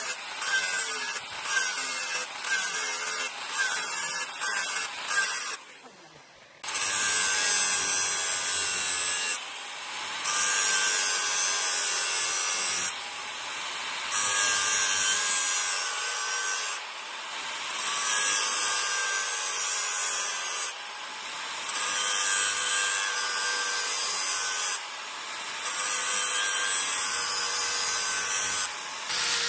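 A powered grinder working a steel knife blade: quick repeated strokes at first, then a short pause, then long grinding passes of about three seconds each with a steady motor whine, easing off briefly between passes.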